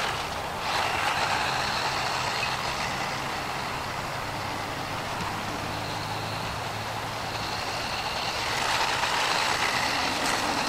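1/18-scale brushless 4x4 RC monster truck driving on a ball field, its motor whining and tyres scrubbing over the dirt, getting louder about eight seconds in.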